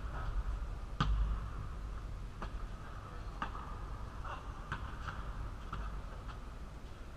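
Basketball bouncing on a hard indoor court floor, with irregularly spaced thuds, the loudest about a second in, and short sneaker squeaks between them.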